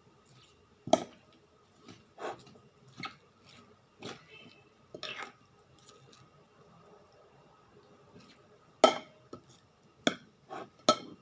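Scattered clicks and clinks of cutlery against a plate while eating, about ten in all with the loudest near the end, between stretches of quiet mouth sounds.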